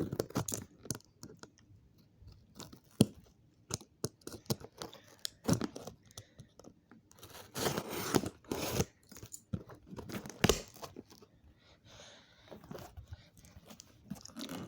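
A cardboard shipping box being worked open by hand: irregular scraping, tearing and crunching of cardboard and tape, with sharp clicks, the loudest just past the middle.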